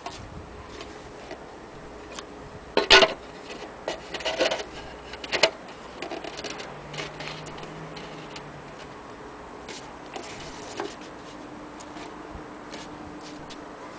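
Clicks and clattering knocks from handling an antique hand-crank gramophone. It is loudest in a few clattering bursts between about three and five and a half seconds in, with scattered lighter ticks around them.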